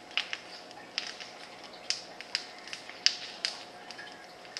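Sharp clicks and snaps at irregular intervals, two or three a second, over a faint steady hum.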